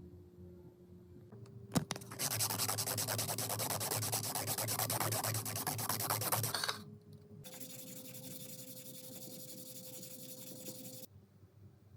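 Knife blade being sanded by hand: rapid back-and-forth rubbing strokes for several seconds, after a single sharp click. Then a quieter, steady hiss with a faint hum that stops near the end.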